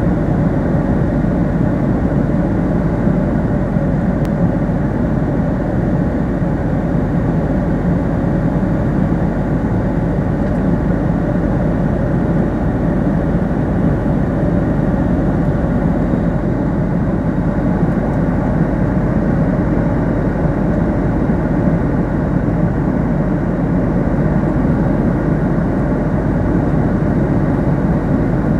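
Steady cabin noise inside a jet airliner in flight: an even, low-pitched rush of airflow and engine drone with a faint steady hum.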